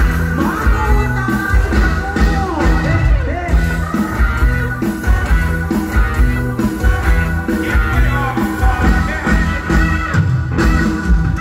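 Loud live music from a Thai mor lam stage show: a band with drums and keyboards playing an upbeat song with a steady beat through the loudspeakers, with singing over it.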